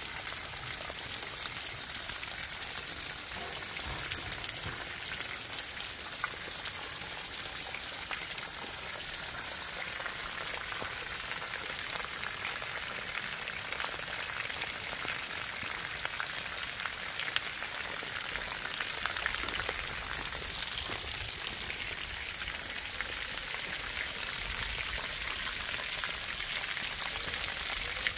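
Heavy rain falling steadily, a dense even patter, with water dripping off the eaves of a timber roof covered in plastic sheeting.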